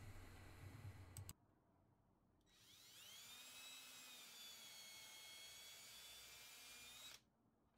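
Ridgid cordless drill running faintly while boring a pilot hole into a wooden corner joint: its motor whine rises as it spins up, holds steady for several seconds, then cuts off near the end.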